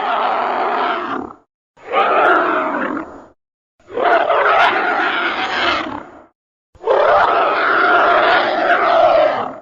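Keizer Ghidorah monster roar sound effects: one roar ends about a second in, then three more rough, pitched roars of two to three seconds each follow, with short silent gaps between them.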